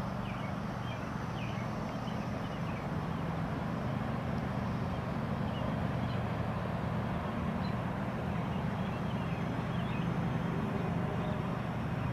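Steady low outdoor hum, with faint short high chirps scattered through it.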